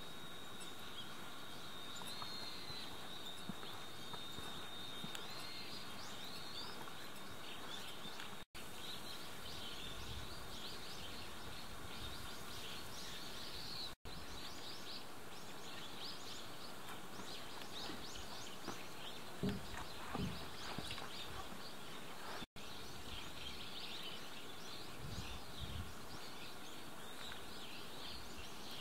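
Outdoor village ambience: a steady hiss with many small birds chirping, and a few soft low thumps about two-thirds of the way through and again near the end.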